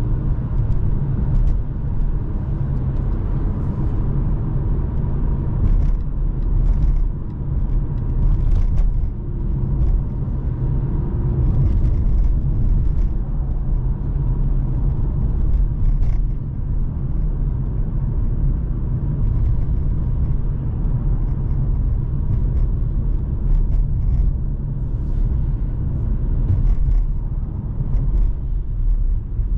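Steady low rumble of a 2020 Mercedes-AMG C43 with a 3.0 L twin-turbo V6 being driven, engine and road noise together, with scattered faint ticks.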